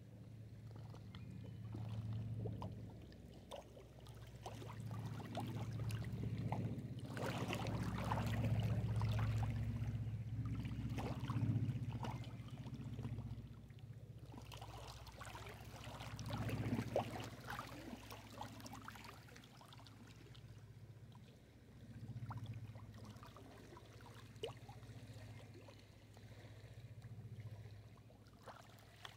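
Small lake waves lapping and splashing against a rocky shore, in swells that come and go, densest about a quarter of the way in and again just past halfway. A low rumble rises and falls beneath the splashing.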